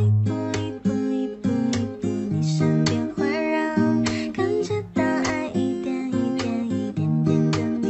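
Background music led by strummed acoustic guitar, with a steady rhythm.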